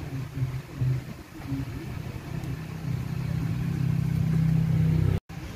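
A low, steady engine rumble that grows louder over the last few seconds and cuts off suddenly near the end.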